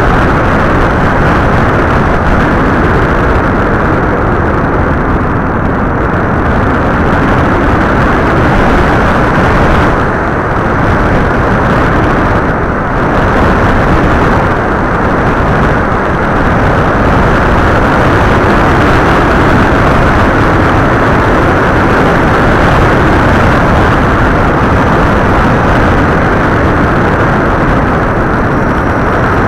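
Loud, steady rush of an FPV model aircraft in flight, picked up by its onboard camera: wind over the airframe mixed with motor noise. It dips briefly twice around the middle.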